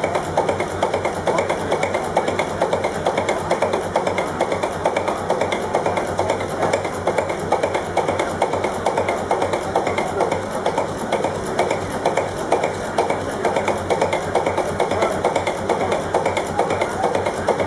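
Vintage multi-cylinder diesel engine running steadily, its exposed valve gear and combustion giving a fast, even, rhythmic clatter.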